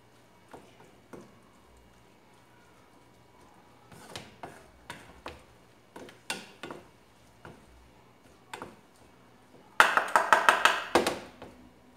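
Wooden spatula knocking against a frying pan while stirring a chicken and mushroom filling: separate knocks about once a second, then a louder rapid clatter of scraping and tapping lasting about a second near the end.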